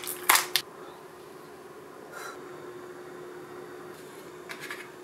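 Plastic film lid being peeled off a disposable tray of cooked brown rice, a short crinkly rip just after the start, then a spoon scraping rice out of the plastic tray near the end, over a faint steady hum.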